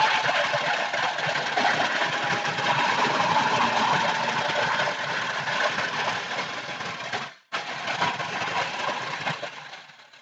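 Table-mounted wood router running under a dust-extraction hose while a wooden workpiece is fed past the cutter: a loud, steady machine noise. It breaks off for an instant about seven and a half seconds in, then resumes and fades at the end.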